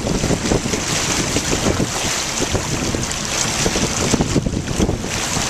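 Wind buffeting the microphone over water sloshing and splashing against the side of a boat at sea.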